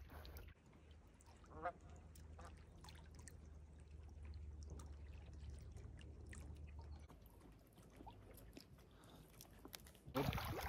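A single short, wavering waterfowl call about a second and a half in, over a faint, low, steady rumble that stops about seven seconds in.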